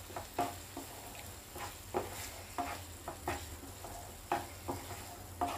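Spatula stirring and scraping a thick onion-tomato masala in a frying pan: about a dozen short scrapes, roughly two a second, over a faint sizzle.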